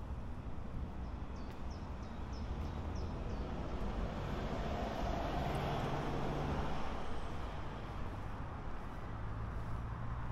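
A motor vehicle driving past on a nearby road: its engine and tyre noise swells to a peak about halfway through, then fades.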